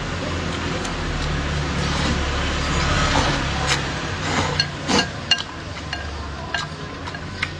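Eating sounds: chopsticks clicking against a bowl with a scattering of short, sharp clinks, and a swell of slurping noodle noise in the middle, over a low steady rumble.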